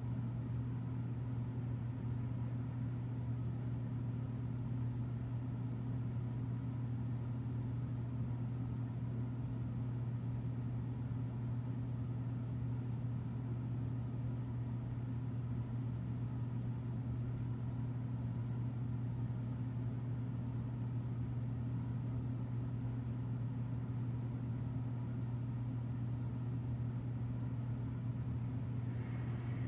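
A steady low hum that holds one unchanging pitch throughout, like a machine or electrical drone, with no other events.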